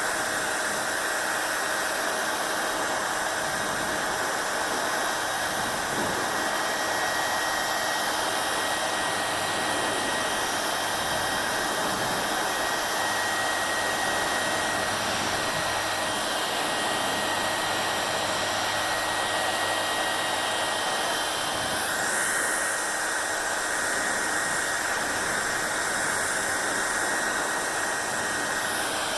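Hair dryer running continuously: a steady rush of blown air with a faint motor whine. The tone of the airflow shifts a little about three quarters of the way through.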